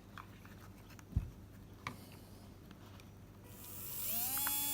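A heavily used 20k Shark electric motor run up on a PWM controller: after a couple of faint clicks, a high whine with many overtones rises from about three and a half seconds in and holds steady near the end.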